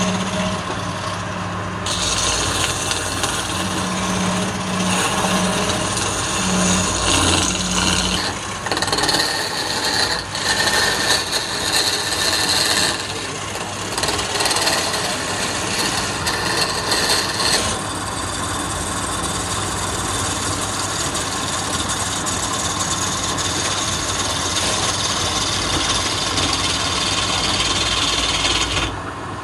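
Wood lathe spinning a reddish hardwood blank while a hand-held turning chisel cuts it: a continuous rasping hiss of the cut over the low hum of the lathe motor. The cutting sets in about two seconds in and swells and eases as the tool moves.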